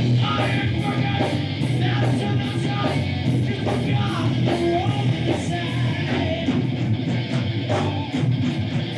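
Heavy metal band playing: crunchy distorted electric guitar over heavy bass and drums, with cymbal strokes on a steady beat, about three a second.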